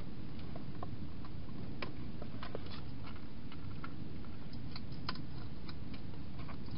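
European hedgehog crunching dry food: irregular small clicks and crackles, a few a second, clustered about two seconds in and again near five seconds, over a steady low background noise.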